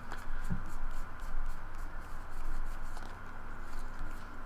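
Trading cards being slid and flipped through by hand: soft scraping of card stock with light ticks as each card is moved.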